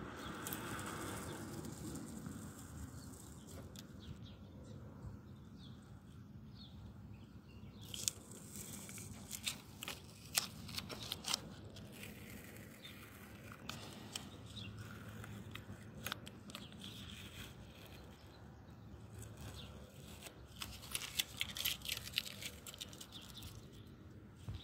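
Masking tape being peeled off freshly spray-painted car bodywork, crackling and tearing as it lifts away from the paint. The crackles come in quick runs about a third of the way in and again near the end.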